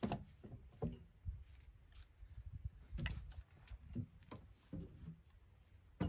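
Cant hook knocking and clanking as a squared alder cant is levered over on a sawmill's metal bed: a scatter of separate thunks and knocks, some sharp, some dull.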